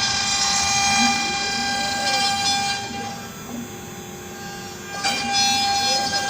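Axiom AR8 CNC router machining wood: a steady high spindle whine with softer tones that swing up and down as the machine moves. It quietens for about two seconds in the middle, then comes back sharply.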